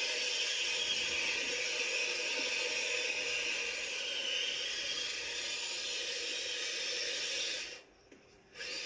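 Electric RC scale truck on snow tracks driving through snow: a steady motor and drivetrain whine, wavering slightly in pitch with the throttle, over a hiss. The sound drops out for about a second near the end.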